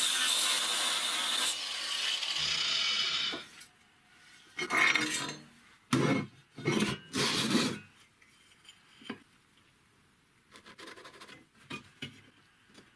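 Angle grinder grinding down a weld bead on a square steel tube, cutting off about three and a half seconds in. Then four rubbing strokes over the steel, and a few faint light clicks and scrapes near the end.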